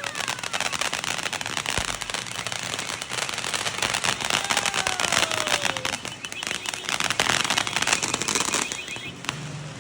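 Fireworks crackling: a dense, rapid run of sharp pops and cracks, with a faint falling whistle about halfway through. The crackling dies away about a second before the end.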